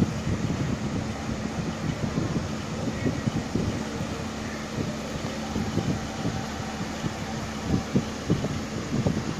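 A steady low hum with irregular low rumbling thumps, like air buffeting and handling noise on a phone microphone.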